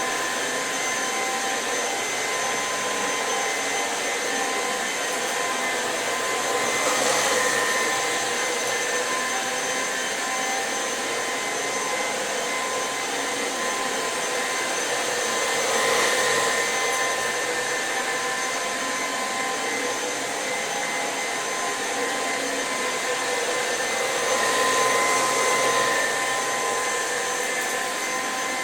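Electrolux Pure F9 stick vacuum running at full power: a steady motor whine with a few fixed tones, swelling briefly three times.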